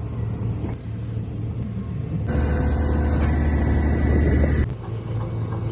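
Heavy hydraulic pile extracting and driving machine running with a steady low hum. From about two seconds in, it works harder and gets louder and heavier for a couple of seconds, then drops back suddenly to its lighter running sound.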